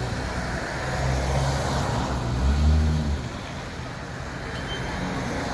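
City street traffic: a steady hum of road noise, with a vehicle's engine growing louder and passing close about two to three seconds in, then fading back into the general traffic noise.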